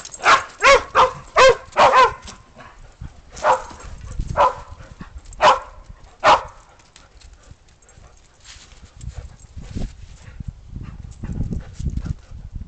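A dog barking about ten times: six quick barks, then four more spaced about a second apart. Low rustling and thumps follow near the end.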